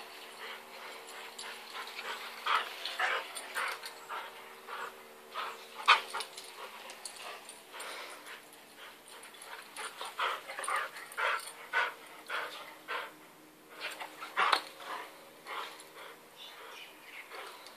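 A Schnauzer and a Brussels Griffon playing chase, with short dog vocalizations at irregular intervals, the sharpest about six seconds in and again near fifteen seconds.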